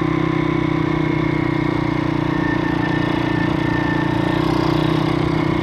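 Stomp pit bike's YX160 single-cylinder four-stroke engine running at a steady, moderate speed under way, held at an even pitch with no revving. Its valve clearances have just been set (0.004 in inlet, 0.006 in exhaust), which fixed a running fault.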